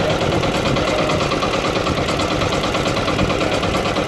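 Small boat engine idling steadily with a fast, even chugging beat.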